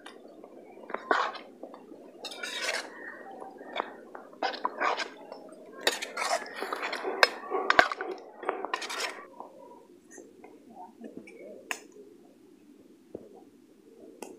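Metal spatula scraping and clinking against a metal kadai while stirring chicken gravy. A busy run of scrapes and knocks fills the first nine seconds or so, then the stirring turns quieter with only occasional clicks.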